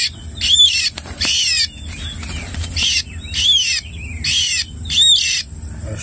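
White-rumped shama giving a steady run of short, harsh squawks, one to two a second.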